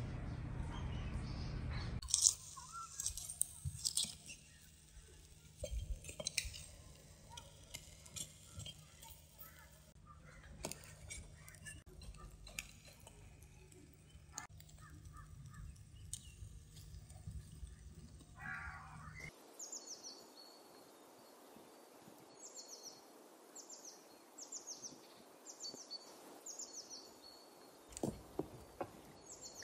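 Charcoal embers crackling and popping under a whole tandoori chicken roasting on a spit. Later a small bird sings a repeated falling chirp about once a second, with a few knocks near the end.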